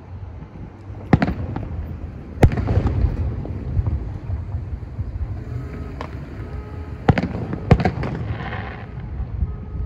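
Aerial fireworks shells bursting: sharp booms about a second in and at about two and a half seconds, then two more close together near seven to eight seconds, each with a rumbling tail, followed by a brief crackle.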